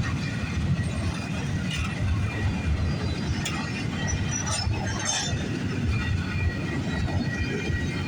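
Freight train cars rolling past: a steady rumble of steel wheels on rail, with faint high wheel squeal and a few brief metallic clinks near the middle.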